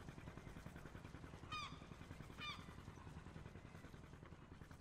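Two short bird calls about a second apart over a faint, low, steady outdoor rumble.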